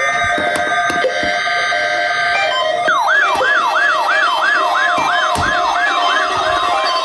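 Weather radio receivers sounding their alert alarms for the weekly test. Several steady alert tones at different pitches run together. From about three seconds in, a siren-like alarm joins with a falling sweep repeated about four times a second.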